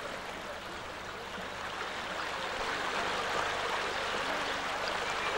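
Shallow stream running over a stony bed, a steady rushing of water that grows a little louder about halfway through.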